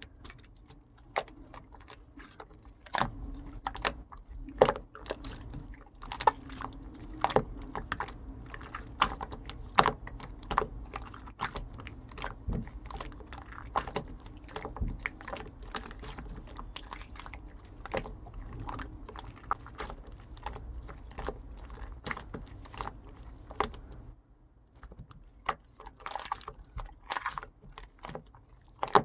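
Hands squishing and stretching a clear slime, making irregular sticky clicks and pops several times a second, with a short lull near the end.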